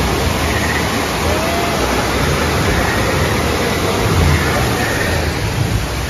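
Steady, loud rushing noise with an uneven low rumble beneath it.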